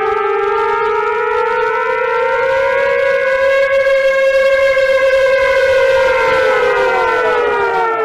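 Siren wail from an Emergency Alert System alarm recording, played in reverse: one long pitched tone that rises slowly, holds, and begins to fall near the end.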